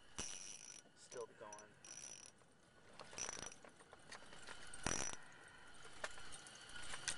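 Small spinning reel's drag buzzing in short bursts, about five times, as a hooked sturgeon pulls line off against it.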